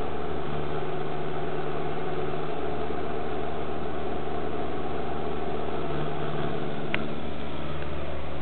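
Steady mechanical hum, with one sharp click about seven seconds in.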